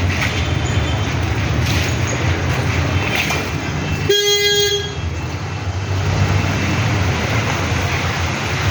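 A vehicle horn sounds once, a short single-pitched toot of under a second about four seconds in, over a steady low rumble of road traffic.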